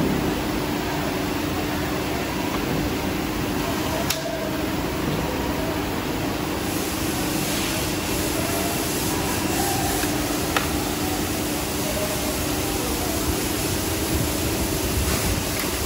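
Steady mechanical hum and rushing noise of running machinery or ventilation, with two sharp clicks several seconds apart.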